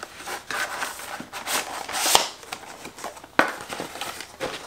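Cardboard box and paper inserts being handled: irregular rustling, scraping and light taps, with the loudest knock about two seconds in.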